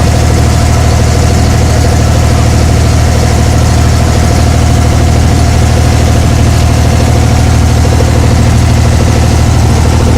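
Abra water taxi's diesel engine running steadily underway, a loud, unchanging low drone.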